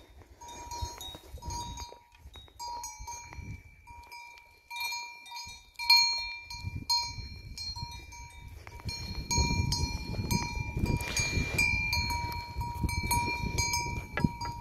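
Bells on a grazing goat herd clinking irregularly: one lower bell rings again and again over several smaller, higher-pitched bells jingling. A loud clank comes about six seconds in, and a low rumbling noise runs under the bells over the second half.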